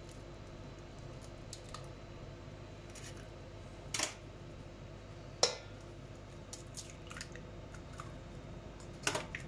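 Eggs being cracked into a stainless steel bowl: a few sharp shell cracks, the two loudest about four and five and a half seconds in, with lighter shell ticks between them and a short cluster near the end.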